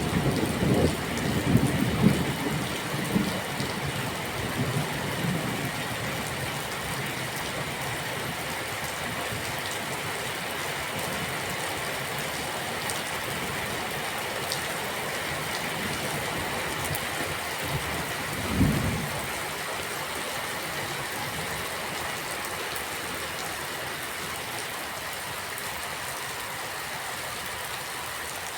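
Steady rain hissing, with thunder rumbling unevenly over the first few seconds and then dying away. A single short low thump comes about two-thirds of the way through.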